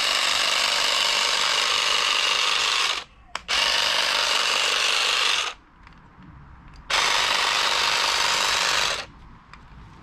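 Small electric grass-and-shrub shear running with its cutting blades trimming a boxwood shrub, switched on three times in runs of about two to three seconds, with a brief pause and then a longer one between them.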